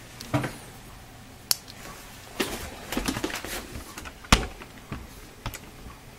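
A small screw being set into a laptop's plastic back plate and driven with a screwdriver: scattered sharp clicks and short bursts of rattling, the loudest click about four seconds in.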